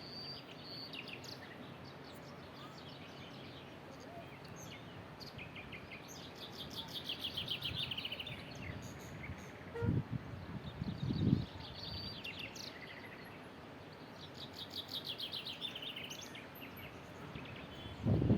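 A songbird singing a trill of quick notes that falls in pitch over about two seconds, repeated roughly every eight seconds, with other short chirps in between, over a steady outdoor hiss. Two brief low thumps come about ten and eleven seconds in.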